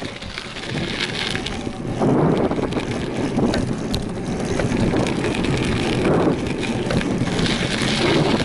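Wind buffeting an action camera's microphone while riding a BMX track, mixed with tyres rolling over the packed dirt surface. The noise is loud and continuous, rising and falling in waves.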